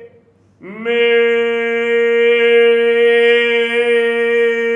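A baritone sings one long, steady note on the syllable "me", starting about a second in. It is held dead straight, without vibrato: a fixed voice, which he calls ugly but the way it must be.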